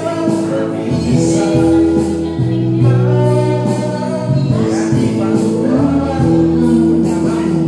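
Background song with singing over instrumental accompaniment, the voices holding long notes.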